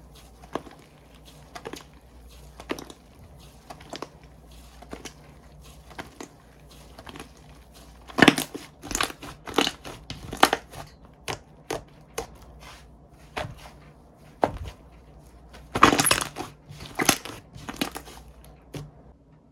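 Slime being squeezed, poked and stretched by hand, giving short sharp clicks and crackles. They come scattered, then in two busy flurries around the middle and near the end.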